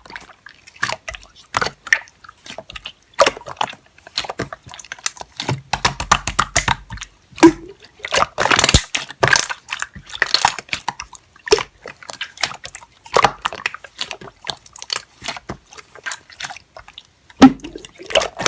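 Hand-played slime being squeezed and pressed, making wet sticky clicks and pops at irregular intervals.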